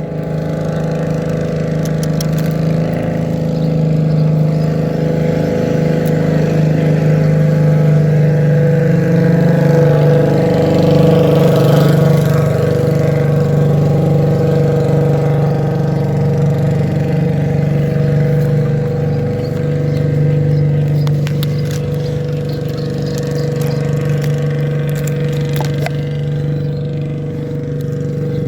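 A small engine running steadily at a constant speed, swelling slightly in the middle before settling back.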